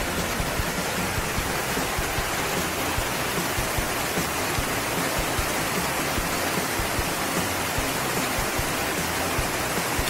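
Mountain stream rushing over rock ledges and small cascades: a steady, dense water rush.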